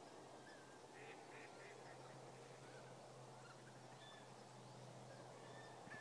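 Faint calls of ducks flying in to roost: a quick run of four short calls about a second in, with thin whistled notes scattered throughout.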